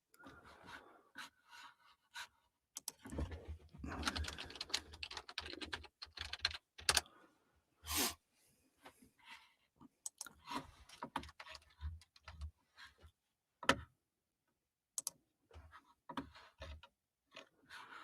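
Faint typing on a computer keyboard: irregular keystroke clicks, with a denser run of keystrokes and some dull desk knocks about three to six seconds in.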